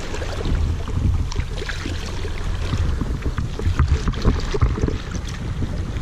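Seawater rushing and splashing along a boat's hull and around a sailfish held alongside by its bill to revive it, water being pushed over its gills, with a low rumble and wind buffeting the microphone.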